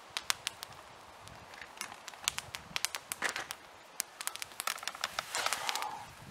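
Wood campfire crackling, with irregular sharp snaps and pops throughout. A brief rustle about five seconds in.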